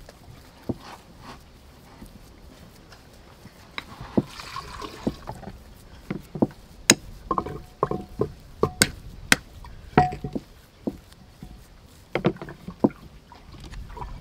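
Metal spoon mashing and stirring boiled potatoes in a glass bowl: irregular clinks and knocks of the spoon against the glass, a few with a brief ring, over soft mashing and scraping sounds. The clinks come thickest in the middle.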